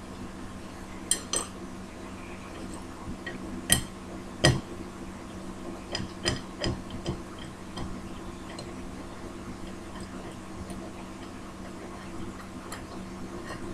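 Light, irregular clicks and taps of small plastic highlighter and pen parts being handled, several in the first half and only a few later, over a faint steady hum.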